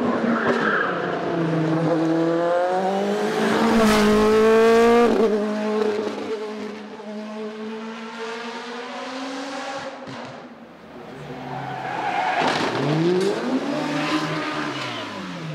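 Race car engines at full throttle on a hillclimb course. Pitch climbs in steps through upshifts and is loudest as a car passes about four to five seconds in; later an engine revs up again, then falls in pitch near the end.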